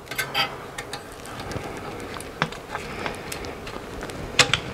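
Light clicks and rattles of a car radio's sheet-metal chassis and CD player unit being handled while a ribbon cable connector is unlatched inside, with a sharp click about halfway and a few more near the end.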